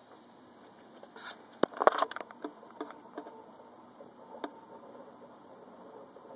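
Keystrokes and clicks on a laptop keyboard and trackpad: a quick run of taps about one and a half to two seconds in, then a few single clicks spaced out over the next few seconds.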